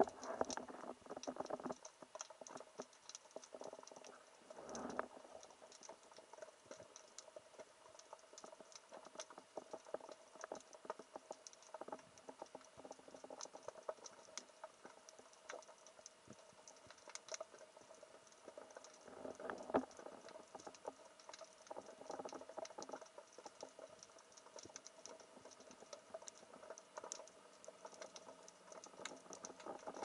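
Underwater ambience over a rocky reef, recorded through the camera: a faint, constant crackle of many tiny clicks. There are a few louder rustling swells, near the start, about five seconds in and around twenty seconds in.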